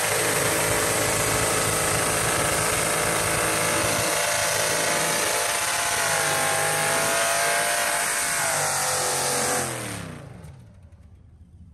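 Car engine held at high, steady revs during a burnout, over a loud rushing noise. About ten seconds in, the revs fall away and the sound drops off sharply, leaving a fainter engine.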